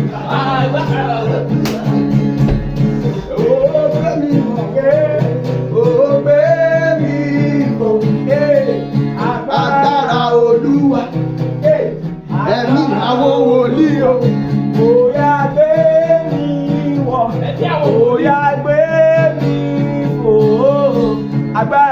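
Gospel song: a voice singing a flowing melody over steady instrumental backing.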